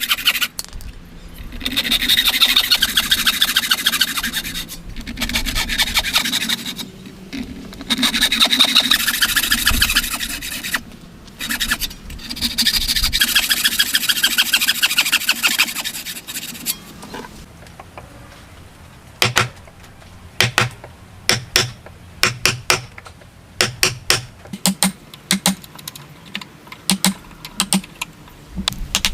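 Hand saw cutting wood in four long bursts of rapid strokes, with short pauses between them. After a quieter stretch, a run of light, sharp taps and clicks follows.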